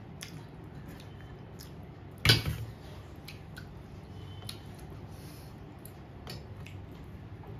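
A person eating: soft chewing and squishing with scattered small clicks, and one sharp knock about two seconds in.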